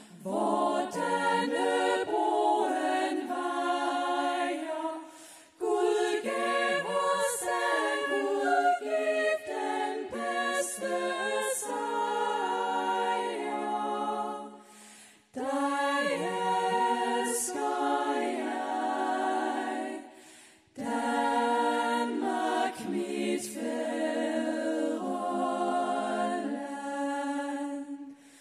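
Female a cappella vocal group singing in close harmony into handheld microphones, in phrases separated by brief pauses.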